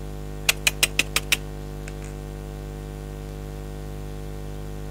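Steady electrical mains hum, with a rapid run of six sharp clicks about half a second in.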